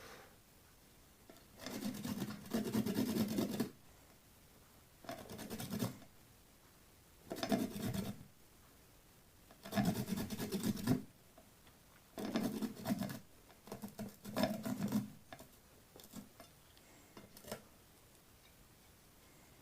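Bitter kola nut being rubbed on a hand grater: six short bouts of rasping strokes with pauses between them, then a few light taps near the end.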